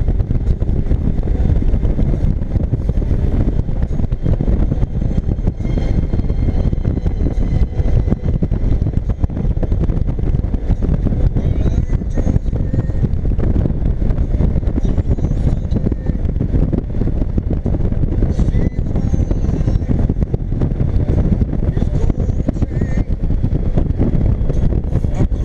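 Train running, a loud, steady low rumble that holds at the same level throughout.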